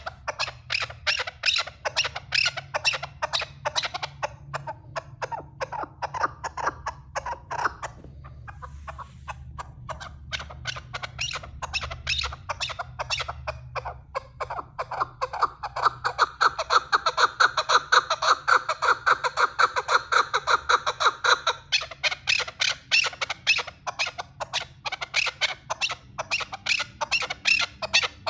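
A partridge calling in a long, fast series of rapidly repeated notes, several a second. The calling thins out briefly about eight seconds in, then grows louder and denser for several seconds in the middle.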